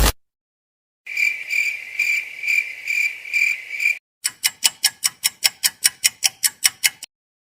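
Two stock sound effects in turn: a high cricket-like chirping that pulses about three times a second for some three seconds, then a fast run of sharp clicks, about six a second, that stops suddenly.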